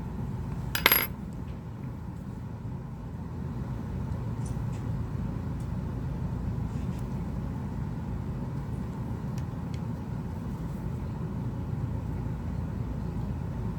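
Small metal parts being handled on a phone-repair bench. There is a sharp metallic click about a second in, as of a tiny screw or tool set down, and a few faint clicks later, over a steady low hum.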